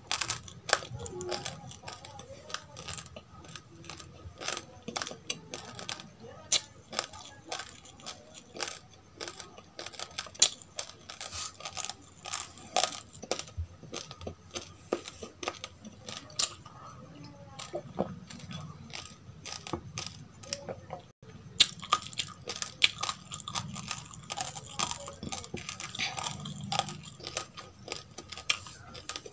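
Close-up crunchy chewing of dry roasted rice: a dense run of sharp crackles and crunches, with a split-second break about two-thirds of the way through.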